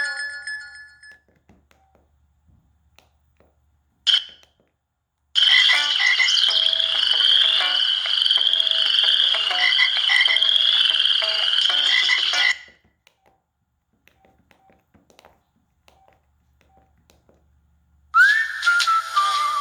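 Preloaded ringtones playing through an LG enV3 phone's speaker, one after another. The previous tone trails off and a short beep comes at about four seconds. Then a ringtone with a warbling high tone over a repeating pulse plays for about seven seconds and stops. After a pause of about five seconds, a new tone with gliding, whistle-like pitches begins near the end.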